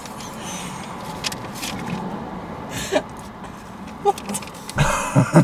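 A tortilla wrap and its brown paper takeaway bag being handled and rustled, with a few soft clicks and small vocal sounds over a steady low car-cabin hum; a louder burst of rustling comes near the end.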